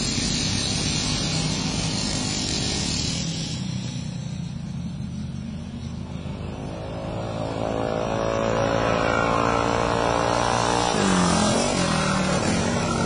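Several pull-start mini bikes racing, their small engines distant at first and growing louder from about seven seconds in as the pack comes around. They pass close by near the end, the engine note bending as they go past.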